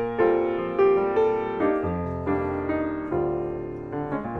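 Grand piano playing a slow passage of chords, each struck and left to ring and fade, a new one about every half second to second.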